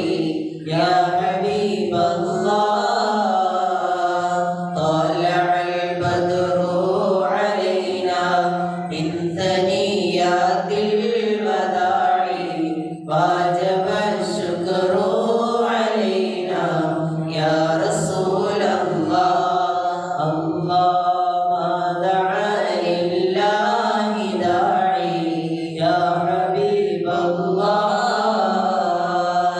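Unaccompanied male voice chanting a mawlid, a devotional recitation praising the Prophet Muhammad, sung into a microphone in a long line that rises and falls in pitch, with only brief breaks.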